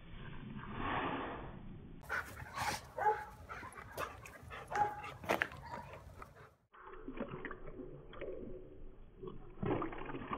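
A German Shepherd and a black dog play-fighting, with short barks, yips and whimpers. Near the end, a dog lapping water from a metal bowl.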